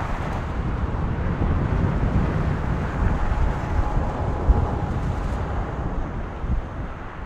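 Jet engines of a departing Boeing 787-10 airliner, a steady rumble mixed with wind buffeting the microphone, fading over the last second or so.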